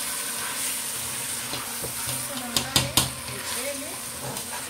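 Chicken in thick tomato sauce sizzling in a stainless steel pot as it is stirred with a slotted spatula. Three sharp knocks of the spatula against the pot come close together a little after halfway.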